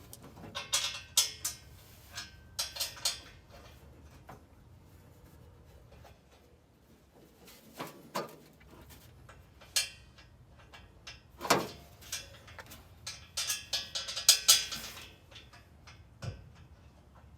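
Metal hand tools and hardware clinking and clanking in irregular bursts, with a duller thud near the end.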